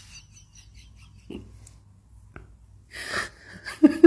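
A man's audible breathing in a pause in the talk: a sharp breathy exhale about three seconds in, then a short voiced sound just before the end.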